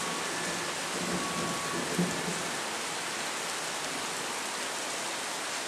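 Steady rain falling in a thunderstorm downpour, an even hiss with no thunder.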